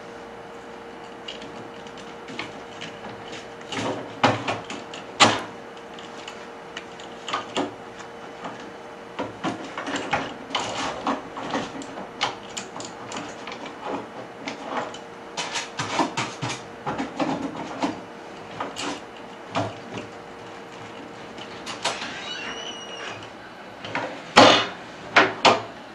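Irregular clicks, knocks and scraping of motorized curtain track parts being handled and pushed into place, with a few sharper knocks near the end. A steady faint hum runs underneath and stops near the end.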